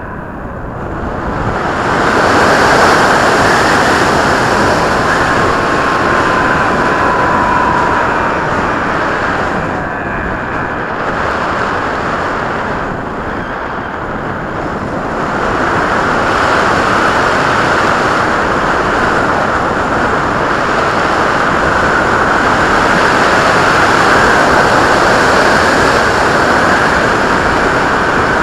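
Loud rushing wind noise from an RC plane in flight, with its electric motor's faint whine rising and falling a few seconds in.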